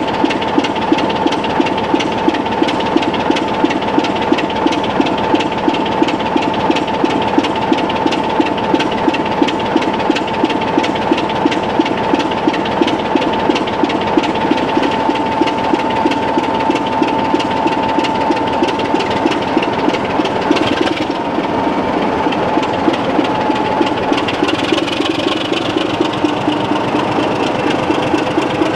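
Class 26 diesel locomotive's Sulzer six-cylinder engine idling at a standstill, a steady rhythmic beat of about two to three pulses a second with a constant whine over it.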